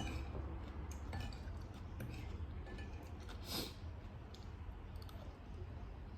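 A person eating: faint chewing and mouth sounds with a few small clicks, and a louder soft smack about three and a half seconds in, over a steady low hum.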